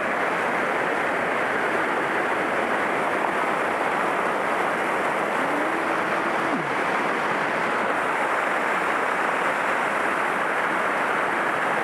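Steady rush of a small rocky mountain stream tumbling over cascades. About five and a half seconds in, a faint held tone sounds for about a second and then drops away.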